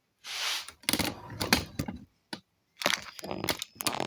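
A short breathy hiss, then a quick, irregular run of sharp clicks and taps from small hard objects being handled, in two clusters.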